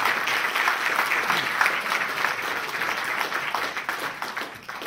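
Audience applauding, a dense patter of many hands clapping that slowly thins toward the end.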